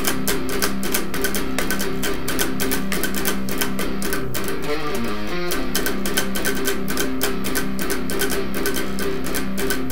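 Electric guitar played at full speed: rapid chugs on the open low strings, tuned down to a low C, in a metalcore breakdown riff. About halfway through, a short run of fretted notes breaks the chugging.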